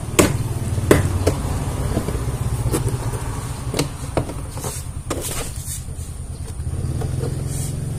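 Plastic car door trim being pulled up and handled, giving a scatter of sharp clicks and knocks, over a steady low hum.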